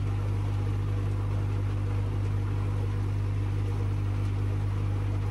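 Steady low electrical hum with a light hiss from running pond filter equipment.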